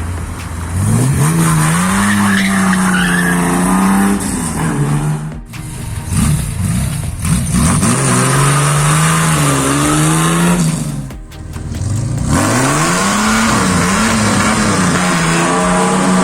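Chevrolet Opala straight-six engines revving loud as the cars accelerate away. Three separate runs, each with the engine note climbing and then held high, broken off abruptly twice.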